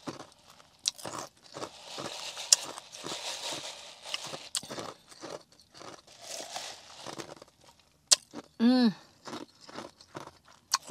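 Ice from a drink cup being chewed with the mouth close to the microphone: irregular crunches and crackles. A short hummed "mm" comes about three-quarters of the way through.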